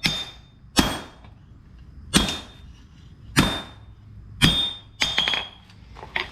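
Hand hammer striking steel on an anvil while forging an axe head: about six heavy, unevenly spaced blows, each with a short high ring, then a few lighter clinks near the end.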